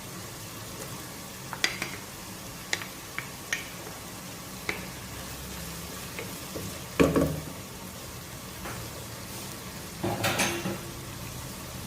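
A spoon or spatula stirring food frying in a cooking pot over a steady sizzle, with sharp clinks and scrapes against the pot now and then. The loudest knock comes about seven seconds in, and a short run of scraping about ten seconds in.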